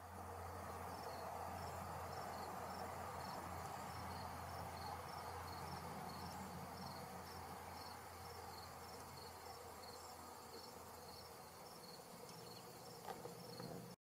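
A cricket chirping steadily at about three chirps a second over a low, steady outdoor background.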